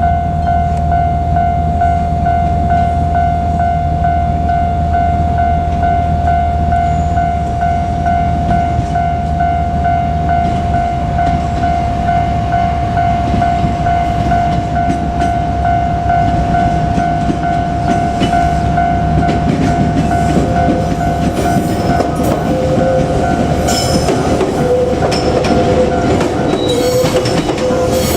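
Japanese level crossing warning bell ringing steadily with a repeating electronic ding. In the last several seconds an approaching JR Kyushu 817 series electric train grows louder, its wheels rumbling and clattering on the rails.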